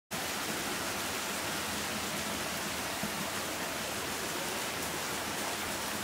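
Heavy monsoon rain falling steadily on trees, leaves and standing water: a dense, even hiss.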